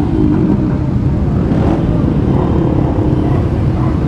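Many motorcycle engines running together at low speed in a slow-moving pack, a steady dense engine rumble.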